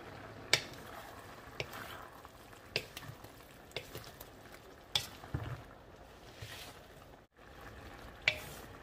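Wooden spoon stirring bok choy and eggplant in a metal wok, knocking sharply against the pan about once a second, over the steady sizzle of the simmering sauce. The sound drops out for a moment near the end.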